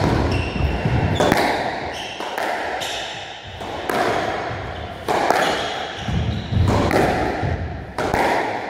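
Squash rally: the ball cracks off racquets and the court walls about once a second, with shoes squeaking on the wooden floor and heavy footfalls between the hits, the impacts echoing in the court.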